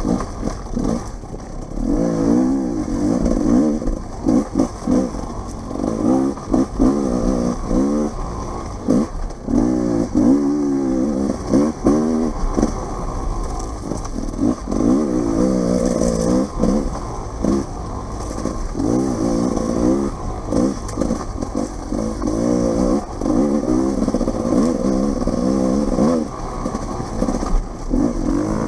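Off-road dirt bike engine revving up and dropping back over and over as the throttle is rolled on and off, in bursts of a second or two, with some clattering from the bike.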